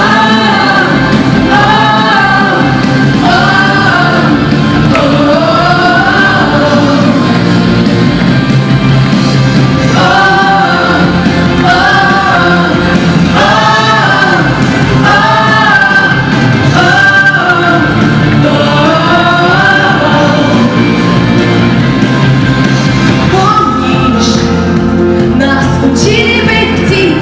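A song: voices singing a melody over a steady instrumental accompaniment.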